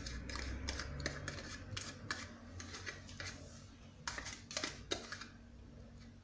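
A spoon stirring in a bowl set over a saucepan of hot water (a bain-marie), making irregular light clicks and scrapes against the bowl, most of them about two, four and five seconds in.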